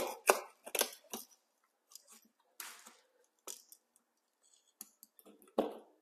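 Wire cutters snipping electrical wire as the conductors in a receptacle box are trimmed back. A quick run of sharp snips and clicks comes in the first second or so, then scattered clicks and a short scrape, with one louder knock near the end.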